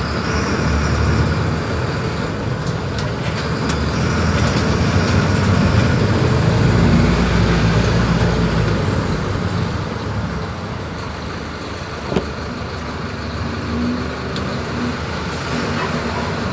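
Mercedes-Benz OF-1721 BlueTec 5 bus's diesel engine running, growing louder over the first six or seven seconds and then easing off, with a single sharp click about twelve seconds in.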